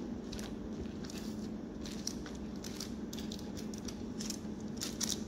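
Bamboo skewers of chicken and vegetables being turned over on a foil-lined baking tray. Faint, irregular clicks and crinkles of the skewers and aluminium foil are heard over a steady low hum.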